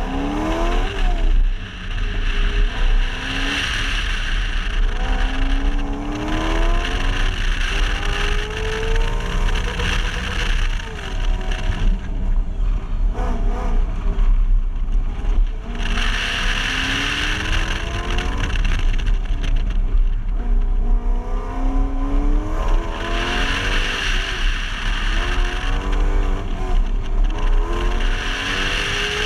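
Car engine at full throttle on an autocross run, revving up hard at the launch and then rising and falling again and again as the driver accelerates and lifts between cones. Tires squeal in several long stretches through the turns, and wind rumbles steadily on the outside-mounted microphone.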